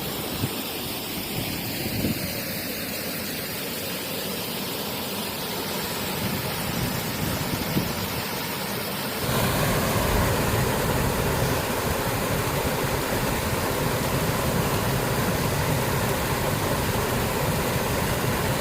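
Steady rush of Wain Wath Force waterfall on the River Swale, the river running low; it turns louder and fuller about halfway through.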